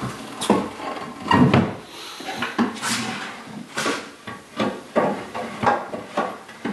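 Solid cherry-wood desk base parts knocking and clunking as the legs and crosspiece are handled and fitted together: an irregular series of sharp wooden knocks.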